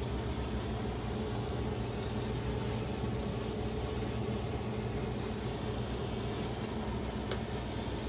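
Steady buzzing hum of a honeybee colony clustered on an open-air nest, many bees buzzing at once.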